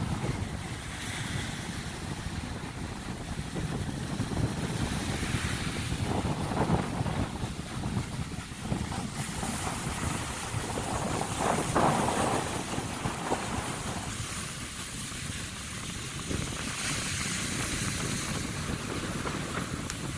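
Strong wind buffeting the microphone with a low rumble, over big ocean surf breaking on the shore, with waves swelling louder about six and twelve seconds in.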